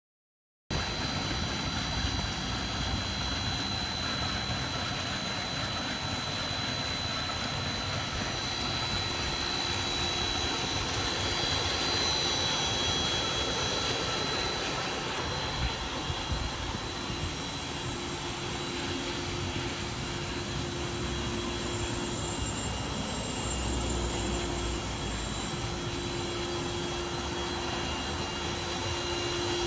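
Industrial dust extractor running steadily, a rush of air with a high whine as it draws concrete dust through hoses into the dumper's cyclone separator. The sound starts about a second in, and a steady lower hum joins about eighteen seconds in.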